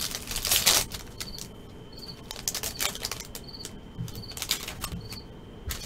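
Foil trading-card pack being torn open and the cards handled, with a burst of crinkling about half a second in and scattered rustles and clicks after it.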